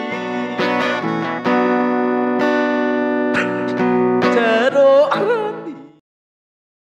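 Song with strummed acoustic guitar and a singing voice, which cuts off abruptly about six seconds in, leaving dead silence.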